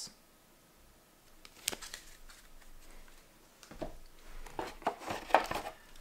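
Game cards being handled by hand: a sharp click about two seconds in, then soft taps and rustling of card stock against the cardboard box and its plastic insert in the second half.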